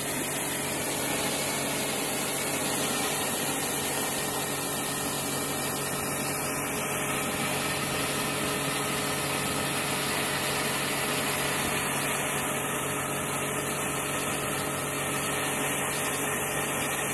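High-pressure washer running steadily: the pump's motor hums under the loud hiss of the water jet striking the steel hull, blasting fouling and old paint off the boat's underwater section.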